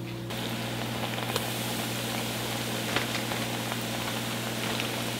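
Battered pickle slices frying in hot oil in an electric deep fryer: a steady sizzling and bubbling that sets in sharply just after the start, with a few sharp pops, over a steady low hum.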